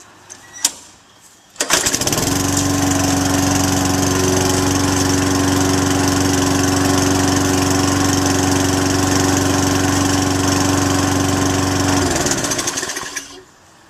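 Walk-behind lawnmower's small gasoline engine, its recoil pull cord freshly rewound, pull-started: a couple of light clicks, then it catches about a second and a half in. It runs at a steady speed for about ten seconds, then is shut off and winds down to a stop near the end.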